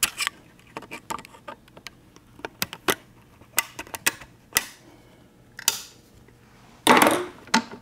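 Steel snap ring and snap-ring pliers clicking against the output-shaft rear bearing of a Ford Toploader four-speed transmission as the tight ring is worked into its groove: scattered sharp metal clicks, with a longer, louder rasp near the end.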